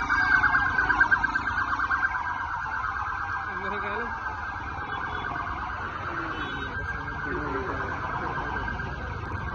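Police sirens sounding: a fast, rapidly pulsing warble for the first couple of seconds, then a continuous siren tone, over the low running of motorcycle engines.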